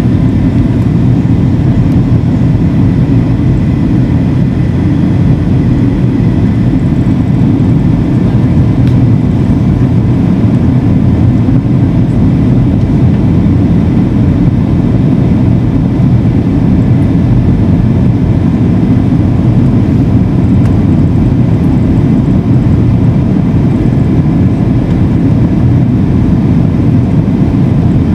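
Boeing 757 cabin noise during the descent to landing: the twin turbofan engines and the airflow past the fuselage make a loud, steady low rumble inside the cabin, with a faint high steady whine above it.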